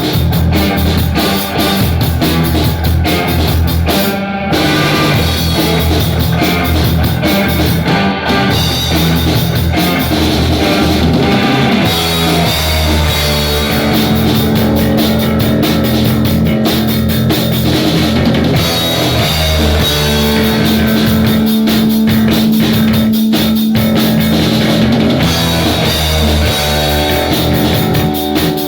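Rock music with a drum kit and guitar, loud and continuous with a steady beat.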